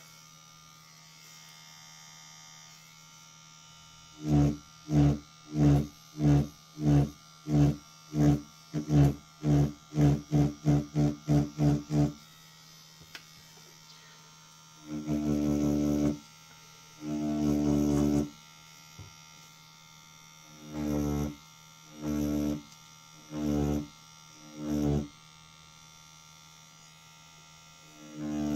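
Rotary pen tattoo machine buzzing in stop-start bursts as the needle works practice skin. First comes a run of short bursts that get faster, then a few longer runs of about a second, then more short bursts. A low steady hum carries on between them.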